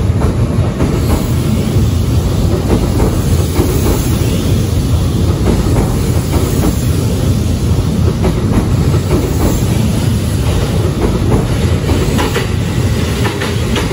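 Kintetsu 80000 series Hinotori electric train running past the platform: a steady rolling rumble with the wheels clacking over rail joints.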